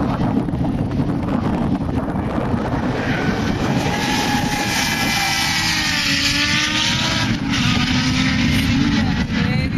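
Rage R200RT buggy's engine revving up and down as it drifts past, coming in strongly about three seconds in, over heavy wind buffeting on the microphone.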